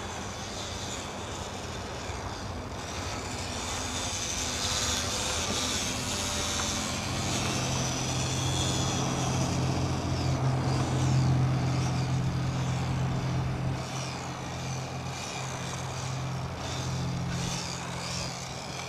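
Electric motor and propeller of a small RC model airplane whining as it flies past, the whine sliding up and down in pitch. A low steady hum swells to its loudest about halfway through and fades near the end.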